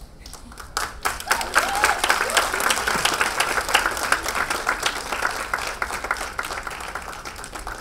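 Audience and cast applauding: dense clapping that starts suddenly about a second in and slowly tails off.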